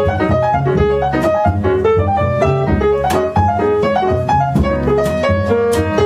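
Grand piano playing a jazz solo of quick single-note runs, with upright bass underneath.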